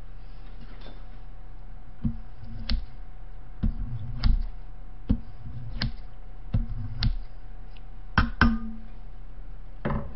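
Kitchen scissors snipping through cold naengmyeon noodles in a stainless steel bowl: about ten sharp, irregular snips and clicks, several with a dull knock of the bowl.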